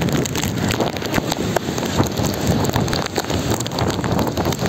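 Typhoon wind and driving rain, loud and gusting, buffeting the phone's microphone.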